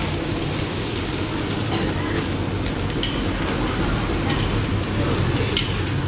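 Fried rice being stir-fried in a steel wok: a metal spatula scrapes and clinks against the wok a few times over a steady low roar from the wok burner.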